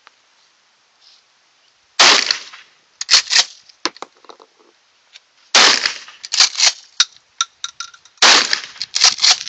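Gunshots: a string of sharp shots beginning about two seconds in, loose groups spaced roughly a second or more apart, each trailing off in a short echo, with fainter shots and clicks in between.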